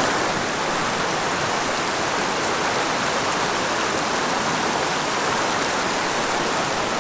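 Small headwater creek rushing over rocks through shallow riffles: a steady, even rush of flowing water.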